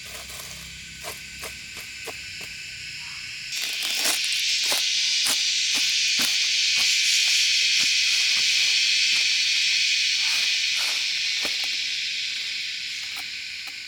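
Chorus of insects, a steady high buzz that swells about three and a half seconds in and eases off near the end, with scattered light clicks and knocks throughout.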